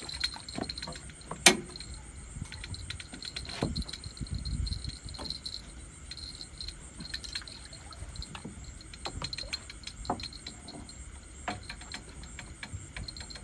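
Scattered light clicks and clinks of small hard objects being handled, the sharpest and loudest about a second and a half in, over a steady faint high tone and low rumble.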